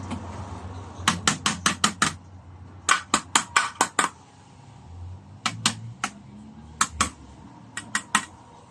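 Sharp clicks or taps in quick runs: six about a second in, six more near the three-second mark, then shorter runs of three, two and four, about five or six a second.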